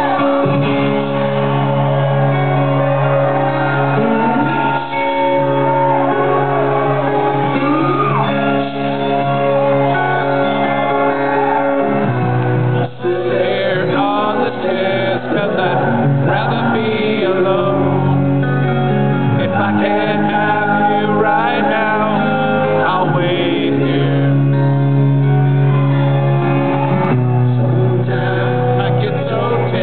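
Rock band playing a slow ballad live in an arena: strummed guitars under a male lead vocal, heard through the PA in a large, echoing hall.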